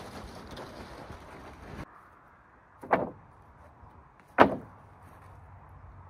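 Wind noise on the microphone for about two seconds, then two sharp wooden knocks about a second and a half apart, the second louder: sawn lumber boards being set down on a board stack.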